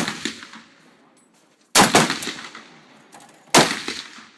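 Gunshots on a shooting range: three single shots a little under two seconds apart, each followed by a decaying echo.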